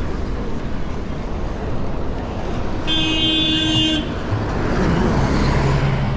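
A vehicle horn sounds once, midway through, a steady honk of about a second that cuts off sharply, over continuous street traffic noise. A lower, steady engine drone comes in near the end.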